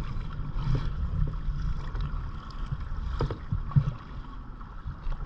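Kayak paddle strokes dipping and splashing in the water, with wind rumbling on the microphone; one sharper splash or knock about four seconds in.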